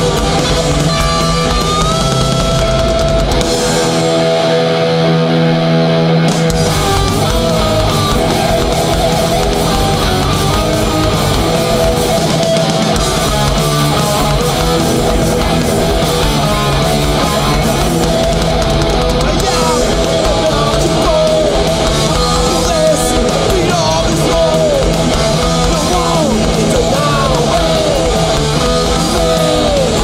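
Crossover thrash band playing live: distorted electric guitars, bass and drums at full volume. About four seconds in, the drums and bass drop out for roughly two seconds, leaving a held chord, before the whole band comes back in.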